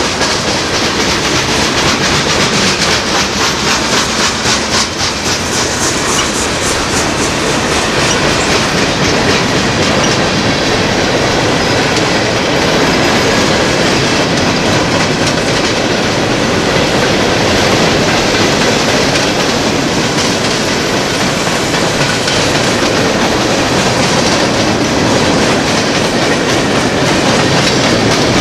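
Freight train rolling past close by, a steady loud rumble of wheels on rail with a quick regular clickety-clack of wheels over rail joints, plainest in the first several seconds.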